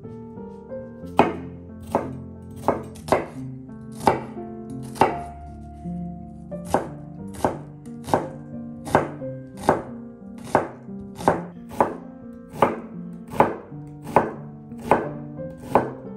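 Chef's knife chopping an onion on a wooden cutting board: sharp knocks of the blade on the wood. They come unevenly at first, then settle into a steady pace of a little more than one a second from about six seconds in.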